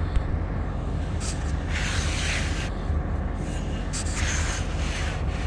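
Cat 323F excavator's diesel engine idling steadily, a low even drone, with two short hissing scrapes about two and four seconds in.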